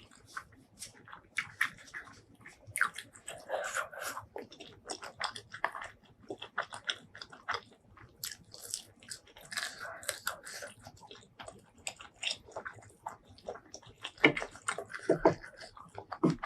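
Close-miked chewing and biting: a quick, irregular run of short wet crunches and mouth clicks, with a few louder bites near the end.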